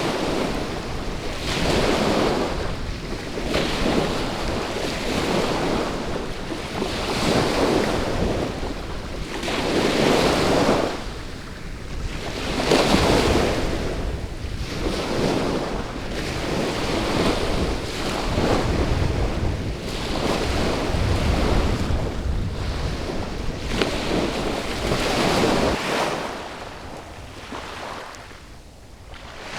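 Small ocean waves breaking and washing up a sandy beach, the surf swelling and easing every two to three seconds, with a low wind rumble on the microphone.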